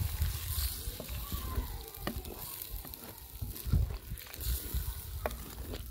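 Ladle stirring green beans and potatoes in a clay cooking pot, with scattered scrapes and knocks against the pot over a steady sizzle of the curry cooking in its liquid. A low rumble runs underneath.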